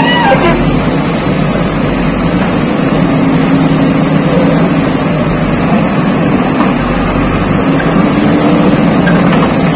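JCB 3DX backhoe loader's diesel engine running steadily while its backhoe arm digs.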